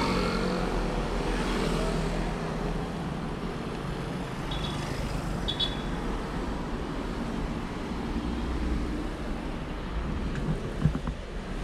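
Steady street traffic: cars driving past on the road, a continuous rumble of engines and tyres. Two brief high tones come about halfway, and a single short sharp knock comes near the end.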